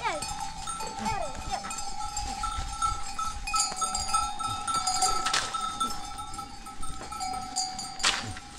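Bells on a grazing flock of sheep and goats ringing steadily, with a couple of short, sharp sounds about five and eight seconds in.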